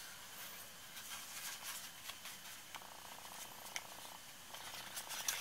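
Faint rustling and light clicks of cardstock as fingers fold and press the small paper gift box closed. A faint buzz comes in for about a second and a half near the middle.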